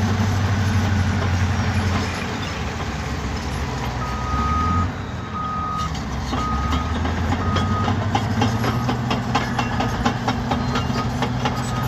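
Caterpillar D7E bulldozer's diesel engine running under load. From about four seconds in the backup alarm beeps roughly once a second as the dozer reverses, and rapid metallic clatter joins it, typical of steel tracks rolling.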